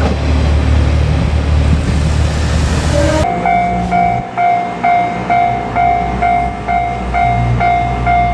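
A train running past at a level crossing, a loud dense rumble that cuts off abruptly about three seconds in. After that a Japanese level-crossing warning bell rings steadily, about two strikes a second.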